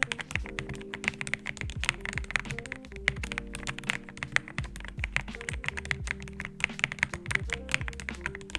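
Typing sound test on a Womier VK66 Pro mechanical keyboard: a fast, continuous run of keystroke clacks, over background music.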